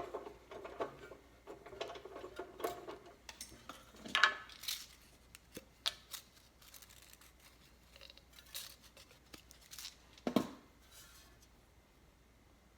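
Scattered small clicks, taps and knocks of a scroll saw blade being changed by hand: clamps worked and the blade and tools handled, with no saw running. The sharpest knocks come about four and ten seconds in.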